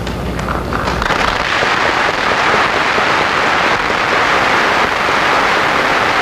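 Large audience applauding: dense, steady clapping that builds up over the first second and holds.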